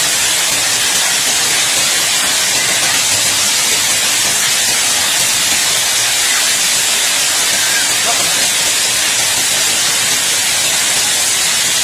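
Heavy hail pelting a paved yard, a dense and steady hiss of countless hailstones striking the ground.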